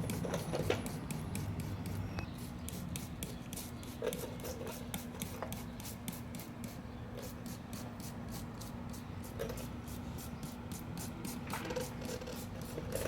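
Hand trigger spray bottle squirting soapy water onto a tire, rapid even pulls about three a second, soaking the bead to check for air leaks. A low steady hum runs beneath.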